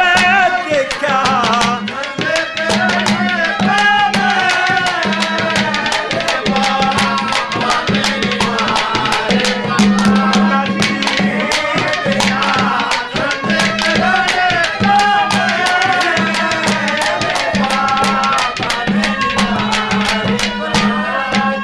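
Instrumental interlude of Haryanvi ragni folk music: quick hand-drum strokes over a recurring low drum beat, with a melody instrument playing a wavering, ornamented line.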